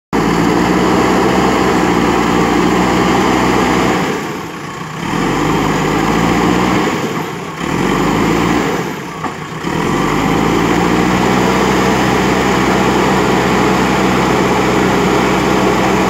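JCB 3DX Super backhoe loader's diesel engine running hard as the front bucket pushes into a heap of dirt, sending up black exhaust smoke. The sound is loud and steady, easing off briefly three times between about four and ten seconds in.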